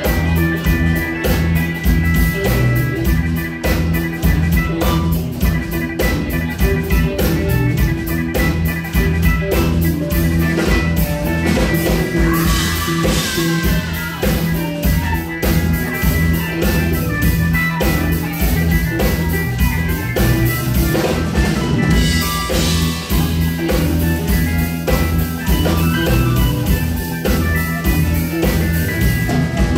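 Live rock band playing: electric guitar, bass guitar, keyboards and drum kit, with a steady drumbeat and a loud, full sound.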